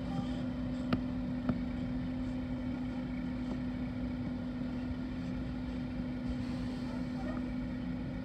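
A motor running steadily, a constant low hum. Two light clicks sound about a second and a second and a half in.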